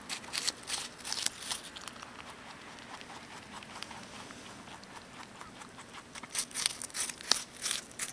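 Mini rex rabbit biting into and crunching a piece of apple: bursts of crisp crunching in the first two seconds and again from about six seconds in, with quieter chewing between.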